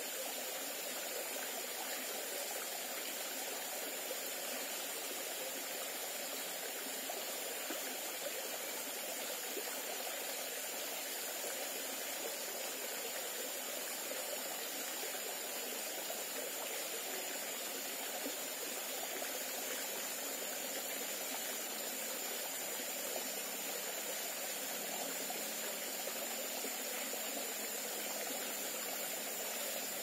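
Small rocky forest stream running over stones into a pool: a steady, even rush of water.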